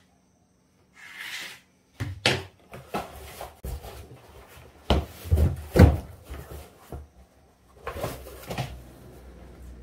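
Irregular wooden knocks and thumps as tiles and tools are handled on and around a plywood platform, loudest about five to six seconds in. A short rustling hiss comes about a second in.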